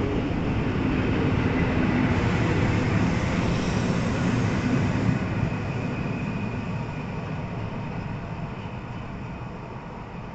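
Polish EN57 electric multiple unit pulling out of a station: the running noise of its wheels and carriages passes close by, then fades from about halfway through as the train draws away.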